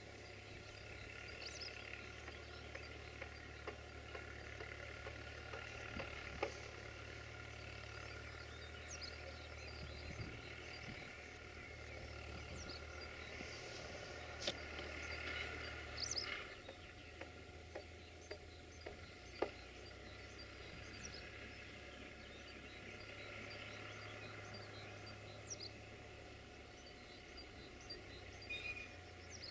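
Distant Fiat DT640 tractor's diesel engine running as it pulls a plough, a faint low drone that shifts in level several times. Birds chirp over it.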